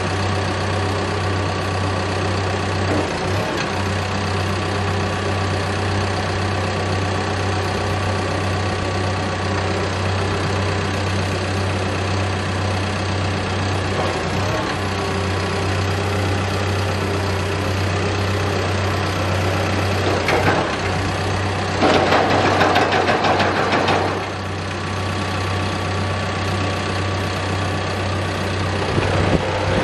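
Caterpillar D5K crawler dozer's diesel engine running steadily while the blade's hydraulics are cycled through angle and tilt to work the fluid through the system. About three quarters of the way through, the sound gets louder and noisier for about two seconds.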